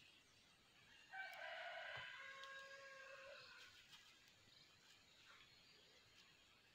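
A rooster crowing once, faint and distant: a single call of about two and a half seconds starting about a second in, dropping in pitch at its end.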